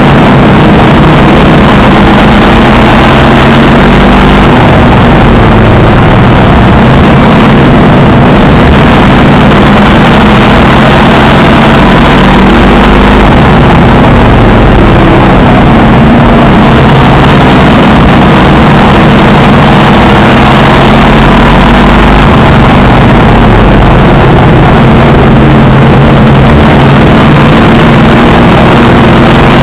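Race car engine heard from inside the car at racing speed, loud enough to overload the recording. Its note rises and falls every several seconds as the car goes down the straights and through the turns.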